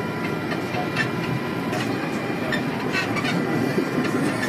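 Steady machinery and ventilation hum of a submarine control room, with a few thin steady electronic tones and scattered light clicks from console keys.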